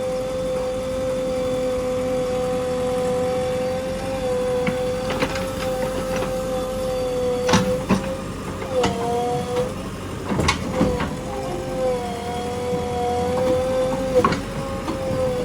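JCB 3DX backhoe loader running while digging: a steady high whine from the machine, dipping in pitch briefly under load a little after halfway. Several sharp clanks and knocks of the bucket working in soil and stones come through in the second half.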